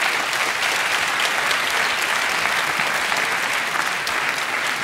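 Arena crowd applauding steadily at the end of a boxing round.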